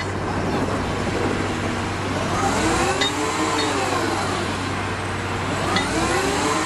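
An engine revving up and back down twice, each swell lasting a couple of seconds, over a steady low hum, with a few sharp clicks.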